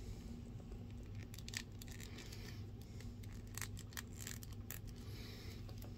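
Faint clicks and taps of plastic action-figure parts being handled, over a steady low hum.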